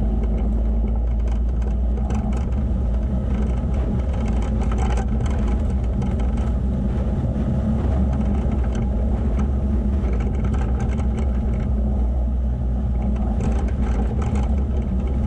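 Vehicle engine running at a steady speed while driving on a sandy, stony off-road track, with tyre rumble and scattered small knocks from stones and bumps.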